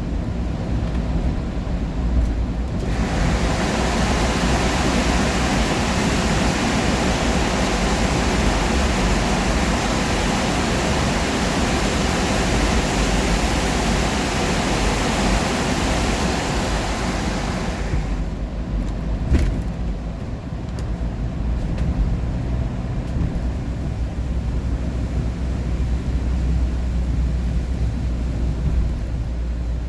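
Car cabin noise while driving at highway speed, a steady low road and engine rumble. About three seconds in, a loud rushing hiss comes in; it stops sharply about eighteen seconds in, leaving the rumble.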